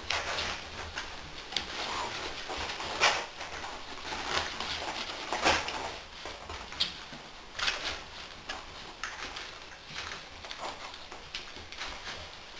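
A litter of American Staffordshire terrier puppies scrabbling and jostling, their claws and paws making irregular scratches and taps.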